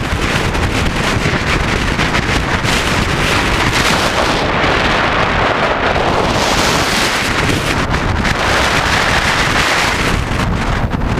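Wind rushing over the microphone of a camera moving fast along a road: a loud, steady rush with no engine note standing out.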